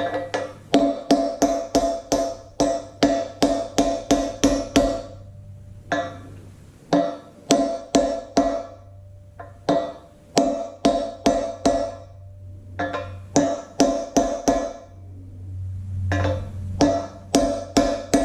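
Hammer striking a socket to drive a new seal into a tractor's front bolster: quick runs of sharp, ringing metallic taps, about three or four a second, with short pauses between the runs.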